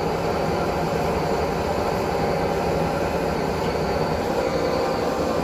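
Hisense PureJet Steam 10 kg washing machine on its final spin at 800 rpm with a sudsy load: the drum spinning with a steady, even hum and rumble.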